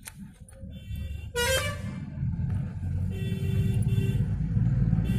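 A motor vehicle passing close by, its engine rumble growing steadily louder, with a horn honk about a second and a half in.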